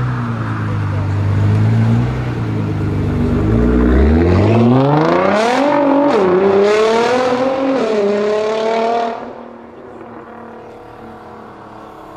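Nissan GT-R R35's twin-turbo V6 pulling away hard: a low rumble for the first few seconds, then the engine note rises through the gears, dipping briefly at two shifts, before it drops away about nine seconds in as the car draws off.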